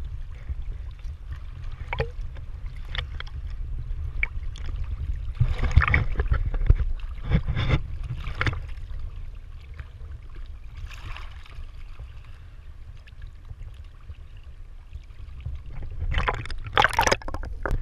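Underwater scuba-dive ambience: a steady low rumble of water, with louder rushes of bubbling about six to eight seconds in and again near the end, as a diver breathes out through the regulator, and a few faint clicks early on.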